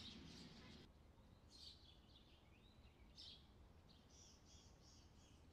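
Faint bird calls over low background noise: scattered chirps and short gliding notes, then from about four seconds in a high note repeated about three times a second.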